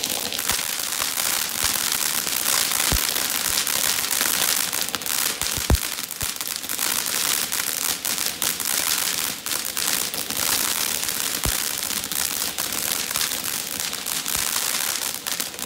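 Everlasting Mayhem fountain firework by Pyro Demon spraying sparks: a steady, loud hiss thick with crackling pops, with one sharper pop about six seconds in.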